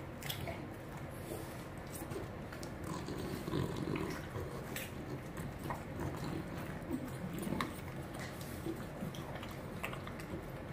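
French bulldog chewing freeze-dried raw chicken treats, with irregular crisp crunches and clicks as the pieces break.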